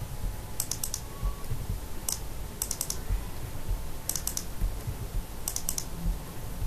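Computer keyboard typing in about five short bursts of a few quick keystrokes each, with pauses between.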